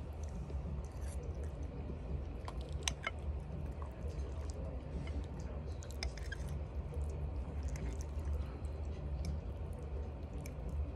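A person chewing a mouthful of pig's feet and cabbage, with sharp clicks now and then, the clearest about three and six seconds in, over a steady low hum.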